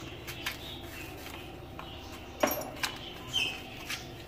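A few light clicks and taps as a small glass jar and a plastic spice container are handled, with a brief high squeak a little over three seconds in, over a steady low room hum.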